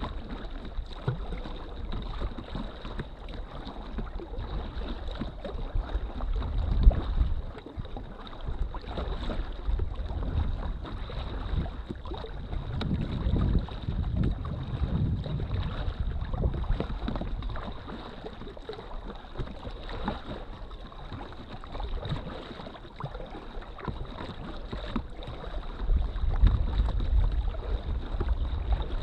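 Water lapping and splashing against the hull of an inflatable drop-stitch kayak under way on choppy water, with wind buffeting the microphone in gusts, strongest three times: about a quarter of the way in, around the middle and near the end.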